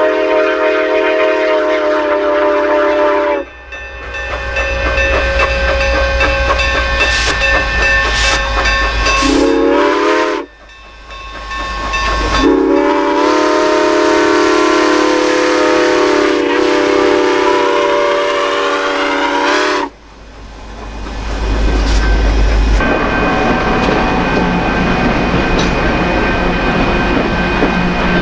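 A steam locomotive's chime whistle blowing three times: a long blast, a short one, then a long one of about seven seconds, each a chord of several tones that bends up in pitch as it opens and cuts off sharply. After the last blast comes the steady noise of the train running.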